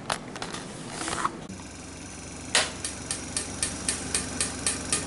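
Sherwood M410 flame photometer switched on. A steady hum starts about one and a half seconds in, then a loud click and a regular run of sharp clicks, about four a second. Rustling handling noise comes before it.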